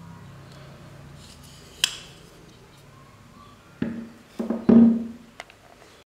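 Pro-Tech TR-3 X1 button-lock automatic knife: one sharp metal click about two seconds in as the blade is folded shut. From about four seconds in come three dull knocks, the last the loudest, then a small tick, as the closed knife is set down on a hard surface.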